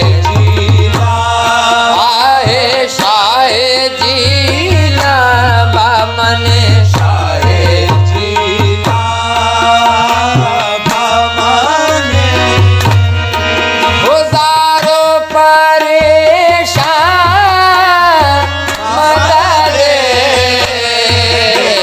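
Qawwali: a sung devotional melody with long, wavering, ornamented vocal lines over tabla.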